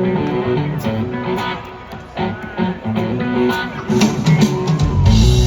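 Live rock band playing with guitar to the fore. The low end of bass and drums swells in fuller near the end.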